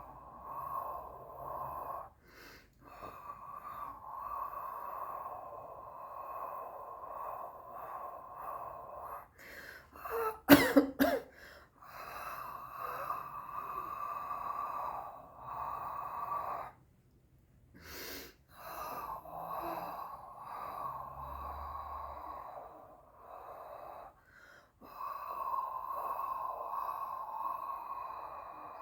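A woman coughing several times in a quick cluster about ten seconds in. Around the coughs runs a steady airy sound in long stretches broken by short pauses.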